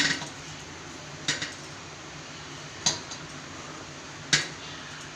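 Steel kitchen utensils clinking, four sharp knocks about a second and a half apart.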